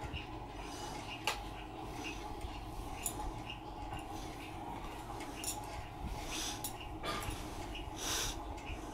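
Soft handling noises of a cotton handkerchief being smoothed and moved about on a bedsheet: faint cloth rustling with a few light clicks and taps, over a low steady room hum.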